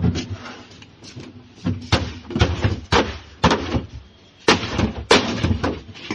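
Irregular loud bangs and knocks on a refrigerator's body as it is broken apart for scrap, about ten strikes at uneven intervals with a short lull near the middle.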